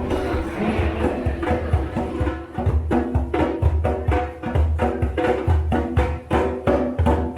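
Upbeat background music with a steady beat and plucked or struck percussion.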